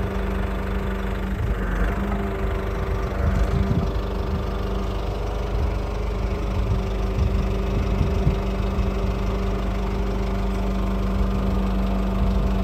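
Hyundai Mighty truck's diesel engine running steadily with a constant hum, driving the hydraulics of its truck-mounted crane as the boom swings down.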